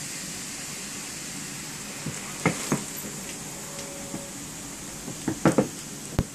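Compressed independent-spring mattress unrolling and expanding inside its plastic wrap: the plastic crinkles and pops in scattered short crackles, a couple about two and a half seconds in and a cluster near the end, over a steady hiss.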